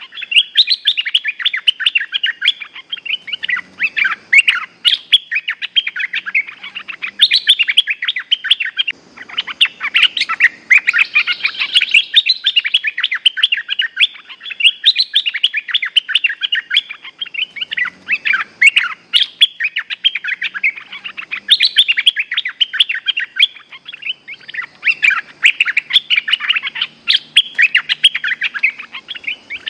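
Bulbuls (merbah lekir) calling back and forth, a dense, almost unbroken stream of quick chirping notes with a few short pauses.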